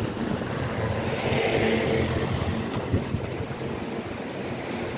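A motor vehicle's engine running close by, its hum fading after about three seconds, over the steady rush of the flooded river.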